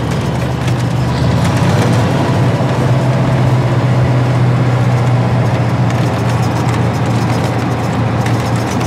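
1979 Kenworth W900A semi truck's Cummins diesel engine running at road speed, a steady low drone with road and wind noise over it, heard from inside the cab.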